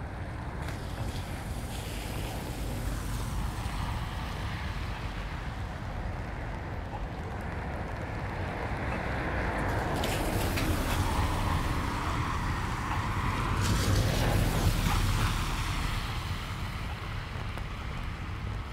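Traffic on a rain-wet street: tyres hissing on wet asphalt as a vehicle passes, growing louder to a peak about fourteen seconds in, then fading. Wind buffets the microphone throughout.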